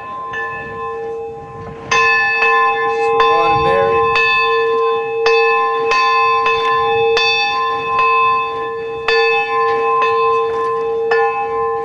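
A single church bell hung in an open metal bell tower, swung on its wheel and struck repeatedly at roughly one to two strokes a second, each stroke ringing on into the next. It grows louder about two seconds in.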